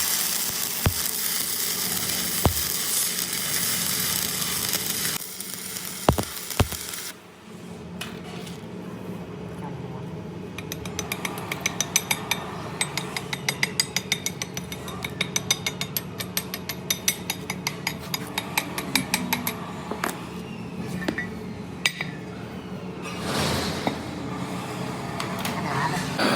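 Metal workshop work on a steel socket. A steady hiss with a few sharp knocks at first breaks off. Then comes a low steady hum with a long run of light, rapid metallic clicks, about three a second.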